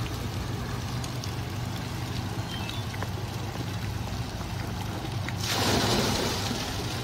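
Kinetic bucket fountain: water trickling and splashing into its basin over a steady low hum, then about five and a half seconds in a louder gush for about a second as a bucket tips and pours.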